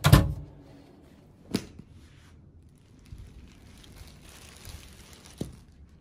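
Handling sounds: a heavy thump at the start, a sharp knock about one and a half seconds in and another near the end, with the crinkling of a thin plastic dry-cleaning bag over a garment in between.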